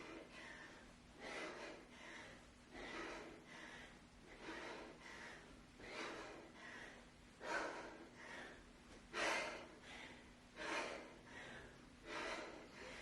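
A woman's sharp, forceful breaths during a set of kettlebell swings, one hard puff about every one and a half seconds in time with the swings.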